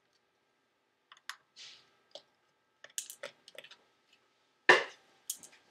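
Small scattered clicks of a screwdriver and tiny T6 Torx screws against the aluminium bottom case of a MacBook Pro as the screws are taken out of the RAM bay, with one louder knock a little before the end.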